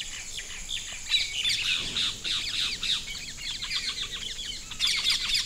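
Birds chirping: a dense chorus of many short calls that sweep down in pitch, busiest from about a second in, over a steady high insect drone.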